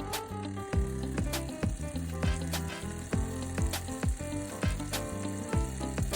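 Electronic music with a bass line and pitch-dropping kick drums about every half second, under a steady high hiss.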